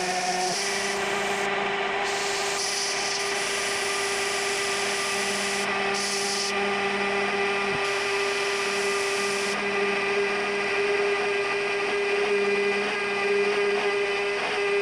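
Compact router spindle on a DIY CNC router running steadily with one constant tone as a half-inch two-flute end mill cuts along the edge of an aluminum plate. A compressed-air blow gun hisses in spells to clear chips and eases off about ten seconds in.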